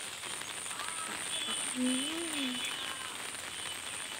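A frog calling once, a short low croak that rises and falls in pitch about two seconds in, over a steady hiss with a faint high, regular pulsing.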